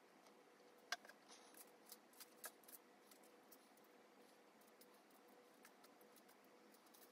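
Faint clicks and ticks of tiny plastic mini-building bricks being pressed together and picked out of a loose pile on paper. A cluster of sharper clicks comes in the first three seconds, the loudest about a second in, then lighter scattered ticks. A faint steady hum runs underneath.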